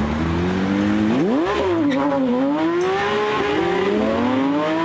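Porsche 911 GT3 RS flat-six engine revving as the car accelerates past. The note jumps up sharply about a second in, dips, then climbs steadily again through the revs.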